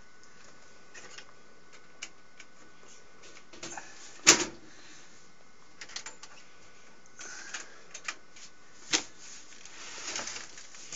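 Scattered clicks and knocks of hands working with computer hardware and cables, with one loud sharp click about four seconds in, another near nine seconds, and short rustling in between.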